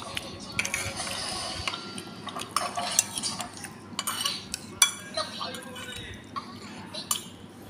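Spoon clinking and scraping against ceramic plates of rice while eating, in short, irregular sharp clinks, the loudest about three seconds and five seconds in.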